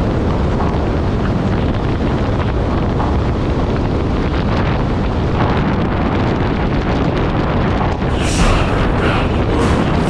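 Heavy wind noise buffeting a motorcycle-mounted action camera's microphone at highway speed, with the rider's Indian FTR-S engine and tyre noise underneath. From about 8 seconds in come sharper hissing gusts.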